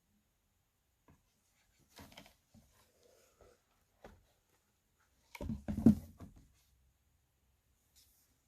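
Handling noise of a children's sound book: scattered soft taps and rustles, with a louder bump and rustle about five and a half seconds in.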